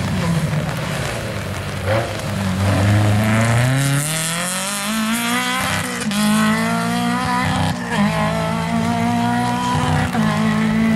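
Volkswagen Golf Mk1 rally car accelerating hard. The engine revs climb steadily for a few seconds, then drop and pick up again at each gear change.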